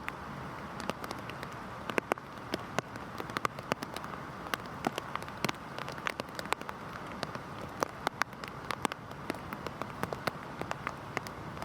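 Heavy rain falling steadily: an even hiss of rain with many sharp, separate drop impacts landing irregularly, several a second.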